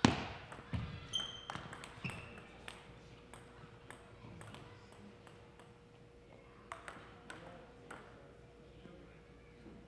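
Table tennis: a hard paddle hit on the plastic ball at the start as a rally ends, then a string of light ball bounces and clicks on the gym floor and table, with two short sneaker squeaks on the floor. A few more light ball bounces follow later, over a faint steady hum.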